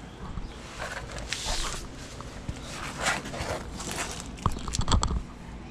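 Rustling and scraping of hands and clothing working at a Jeep's front sway bar quick disconnect, with a few sharp knocks or clicks near the end.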